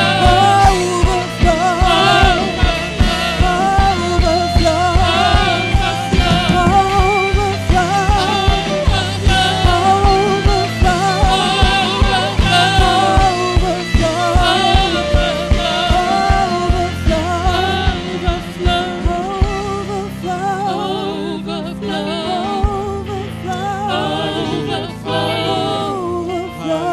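Live worship band playing a contemporary worship song, with lead and backing singers over a steady drum and bass beat. About 20 seconds in the drums and bass drop out and it goes quieter, with the voices carrying on over soft held chords.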